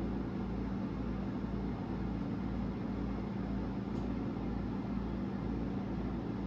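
A steady machine hum, like a fan or air-conditioning unit running in a small room, with a low throb that pulses about twice a second.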